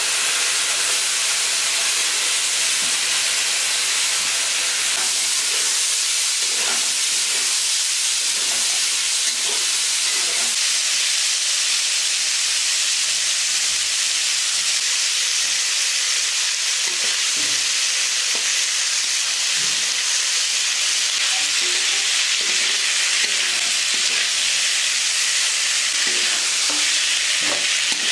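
Food frying in hot oil in a pan: a loud, steady sizzle, stirred now and then, with scattered light knocks.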